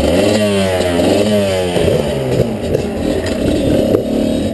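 Dirt bike engine revving, its pitch climbing and dropping back three times in quick succession, then running more unevenly.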